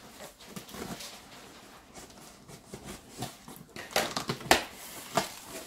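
Packing tape on a cardboard box being cut with scissors and pulled open by hand: scattered scratching and crinkling, with a few loud sharp rips about four to five seconds in.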